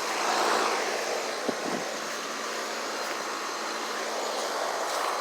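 Outdoor central air conditioner condenser unit running: a steady fan whoosh over a low hum, swelling in the first second, with a single sharp click about one and a half seconds in.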